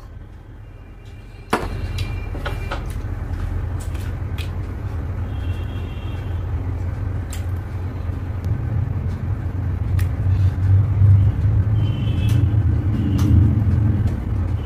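A steady low rumble that starts abruptly with a sharp knock about a second and a half in and swells louder near the end. Small clicks of eating rice and curry by hand run through it.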